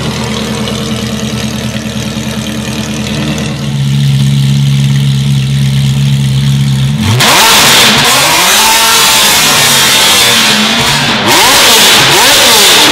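Ferrari F430's flat-plane V8, straight-piped with an X-pipe, on its first run after the install. It idles steadily, then from about seven seconds in is revved hard several times, loud, the pitch climbing and falling with each rev.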